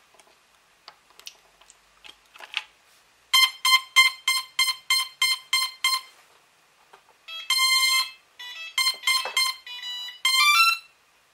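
A battery plug clicks into a Cheerson CX-20 quadcopter, then the quadcopter gives its power-up beeps: a run of about ten quick, evenly spaced beeps, then a short sequence of tones at changing pitches that steps up at the end. The tones then stop and do not go on beeping, the sign that the replaced ESC board has cured the fault.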